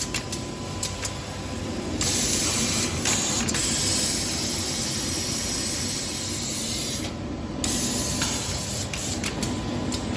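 A ceramic-processing carousel machine running with a steady hiss and machine noise, with scattered light clicks.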